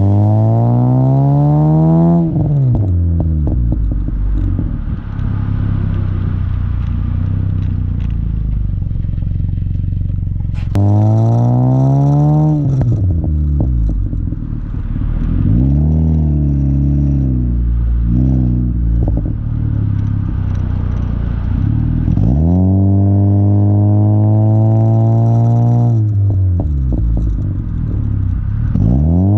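8th-generation Honda Civic with a Skunk2 Mega Power cat-back exhaust accelerating hard several times, the engine pitch climbing steeply. Each time the throttle is released the exhaust crackles and pops on the overrun as the revs fall.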